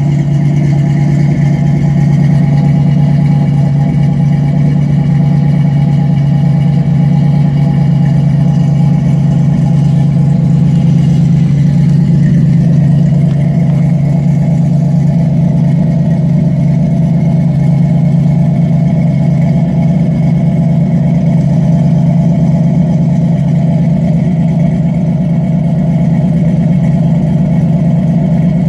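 A 5.3-litre LS V8 swapped into a Chevy S10 idles loudly and steadily through a Flowmaster 40 Series exhaust after a cold start. The tone shifts slightly about twelve seconds in.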